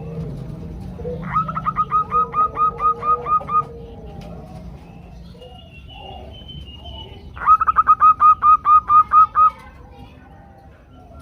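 Female zebra doves giving their calling series to draw males: two runs of about ten quick, even notes each, the first about a second in and the second past the middle. A faint higher chirp sounds between the runs.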